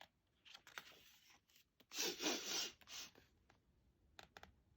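A picture-book page being turned: a short paper rustle about two seconds in, with a smaller one just after and a few faint clicks.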